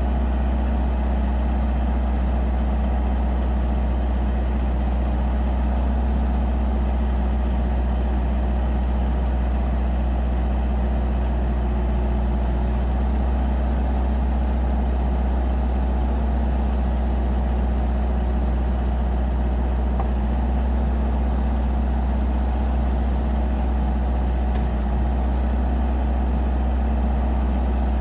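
Diesel engine of a 2013 JCB 1CX skid steer backhoe loader idling steadily, with a constant low hum.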